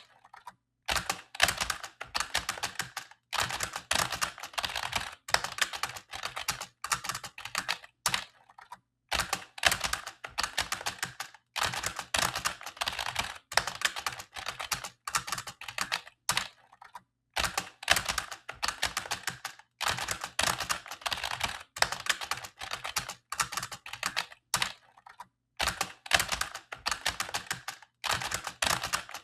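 Old computer keyboard being typed on: rapid key clicks in runs of a few seconds, broken by short pauses.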